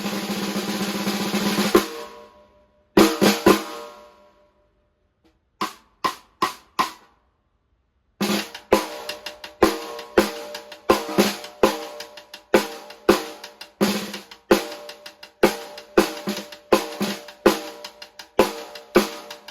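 Pearl Reference 20-ply 14x6.5 snare drum played: a roll swelling for about two seconds, a few sharp strokes, a pause with a handful of soft strokes, then from about eight seconds in a steady, rhythmic run of strokes with accents.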